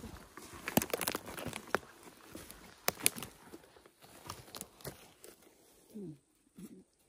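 Irregular crackling, crunching and snapping of dry forest litter (twigs, needles, leaves) as it is stepped on and disturbed. The noise thins out near the end, where there is a brief voice-like sound falling in pitch about six seconds in.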